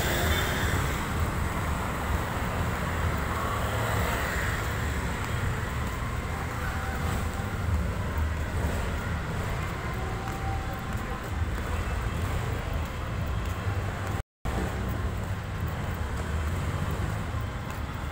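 City street traffic: cars and motorcycles running past in a steady low rumble. The sound cuts out for a moment about fourteen seconds in.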